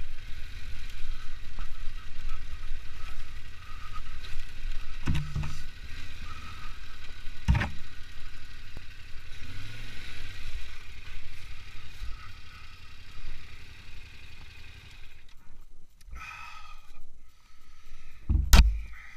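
Yamaha Ténéré 700's parallel-twin engine running at low speed along a rough trail, with knocks and clatter from the bike over the ground. About fifteen seconds in the engine sound drops away, and a single loud knock comes near the end.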